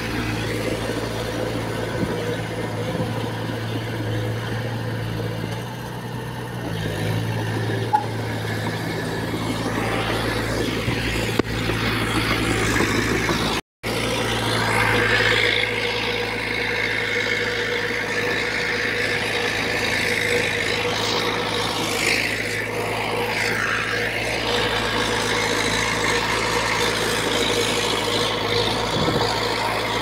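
Diesel engine of a D20P small crawler bulldozer running steadily while it pushes soil. The sound cuts out for a moment about halfway through.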